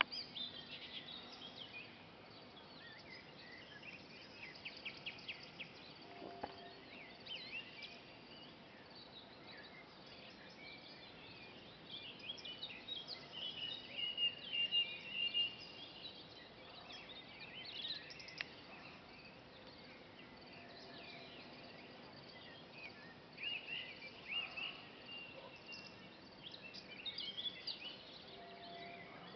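Faint birdsong: scattered short chirps and trills from several small birds, over a steady background hiss.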